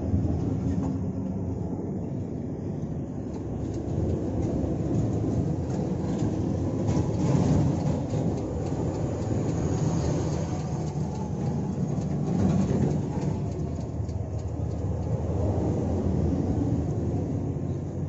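Low, steady rumble of heavy diesel trucks running, swelling about seven seconds in and again about twelve seconds in.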